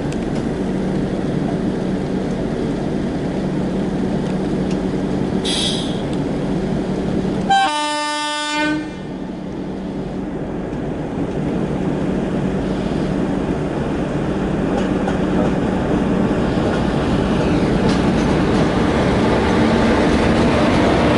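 Passenger train running along the track with a steady rumble that grows gradually louder, and a single locomotive horn blast lasting about a second, about eight seconds in.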